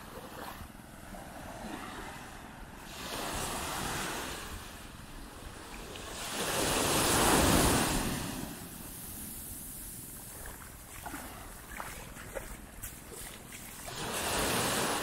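Surf on a sandy beach: waves breaking and washing up the sand in swells, the loudest about seven seconds in and another near the end, with wind on the microphone.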